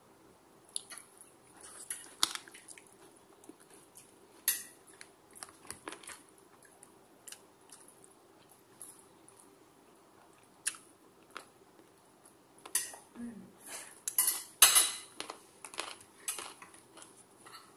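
Metal chopsticks and a spoon clink and scrape now and then against a ceramic plate, with quiet chewing in between. The loudest clatter comes about three quarters of the way through.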